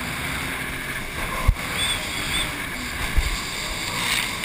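Jet ski running at speed over open water: a steady mix of engine drone, rushing water and wind on the microphone, with two short low thumps about a second and a half and three seconds in.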